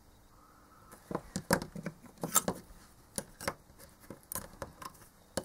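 Irregular sharp clicks and taps of multimeter test probes and hard-drive controller circuit boards being handled, starting about a second in.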